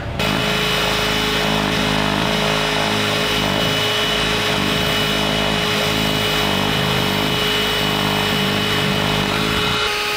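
Cordless drill boring into a fibreglass boat deck, with a cordless handheld vacuum running steadily beside the bit to suck up the shavings. The steady whine holds unbroken and shifts in pitch near the end.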